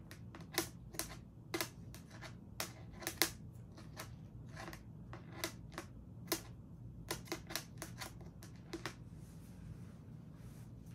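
Irregular small plastic clicks and snaps from a Hasbro Marvel Legends Groot action figure's parts and joints being worked by hand, as a hand is swapped on. The clicking thins out about nine seconds in.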